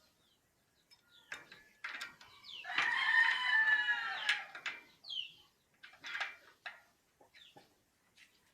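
A rooster crowing once, a call of about two seconds that falls in pitch at the end, with shorter chicken calls before and after it.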